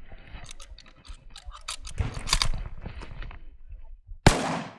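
Clicking and scraping as a Chinese Type 53 Mosin-Nagant carbine is handled and its bolt worked, then about four seconds in a single loud 7.62x54R rifle shot with a sharp crack and a decaying echo.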